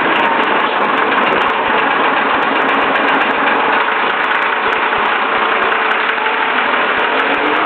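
Leyland National single-deck bus's replacement diesel engine running steadily, its note drifting gently down and then up again.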